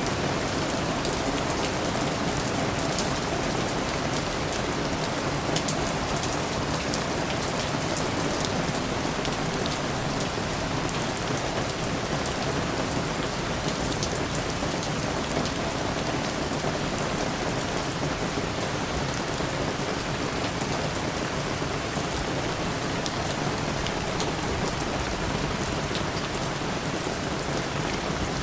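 Steady soft rain: an even hiss with many sharp individual drop ticks scattered through it.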